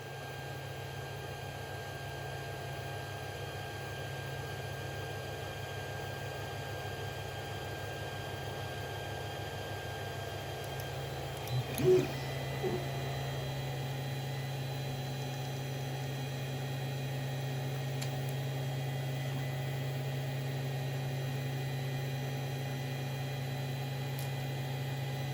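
Creality CR-10 3D printer humming steadily while it preheats its bed and nozzle, a low hum with a few faint high whines. About halfway through there is a short louder sound, and the whine moves to a different pitch.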